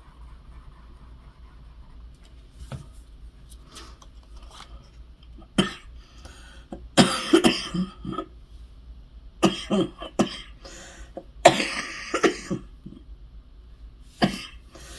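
A person coughing hard in a fit, a run of harsh coughs in several clusters starting about five seconds in, from a lingering illness.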